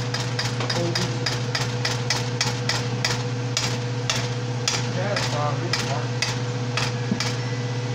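Seasoning shaker bottle shaken over a cooking pot, a fast run of sharp shakes about four a second that thins out to slower, spaced shakes after about three seconds. A steady low hum runs underneath.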